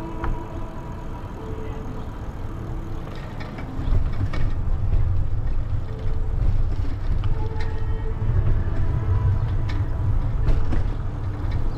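Low rumble of wind and road noise while riding a bicycle, getting louder about four seconds in, with a few faint clicks.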